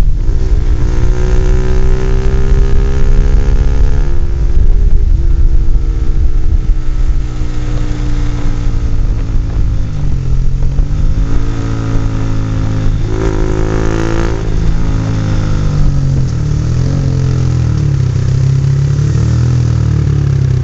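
Honda CBR150R's single-cylinder 150cc engine running through an NJT Racing tri-oval exhaust with the DB killer removed, on the move. The engine note rises and falls with throttle and gear changes, with a quick climb in revs about two-thirds of the way through, over a low wind rumble on the microphone.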